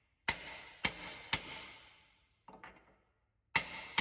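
Hammer blows on a socket driving a new axle bearing into a GM 10-bolt rear axle housing: three hard metallic strikes in quick succession, each ringing briefly, then two lighter taps and another hard strike near the end, as the bearing is driven home.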